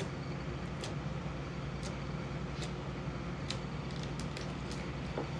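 Slime being mixed by hand, giving scattered small sticky clicks and pops at irregular moments, over a steady low background hum.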